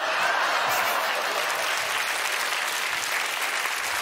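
Studio audience applauding a punchline: dense, steady clapping that starts right as the joke ends and holds through.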